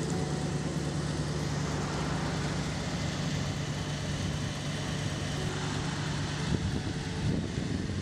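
1970 Ford F-100 pickup's engine idling steadily, with two short louder moments near the end.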